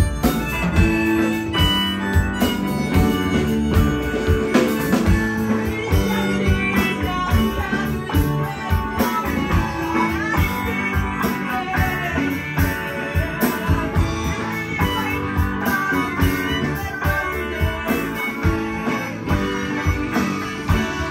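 Live band playing: electric guitar, keyboard and drums, with harmonica near the start.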